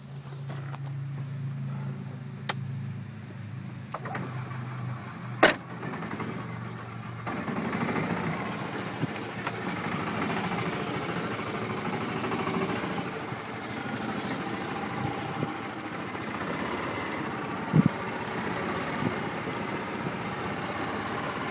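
A small vehicle's engine running at a steady low idle, with one sharp click about five and a half seconds in. From about seven seconds in it runs louder and rougher, with a few knocks.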